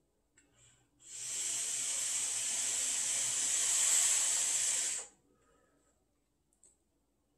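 A four-second hit on a vape with a freshly dripped atomizer: a steady hiss of air drawn through it as the coil fires on the wet wick. It starts suddenly about a second in and cuts off sharply.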